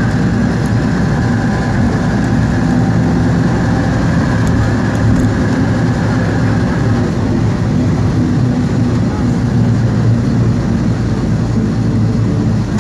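Skoda 706 RT diesel engine of a 1977 Jelcz 272MEX bus running steadily under way, heard from inside the passenger cabin. A high whine runs over it and fades out about seven seconds in.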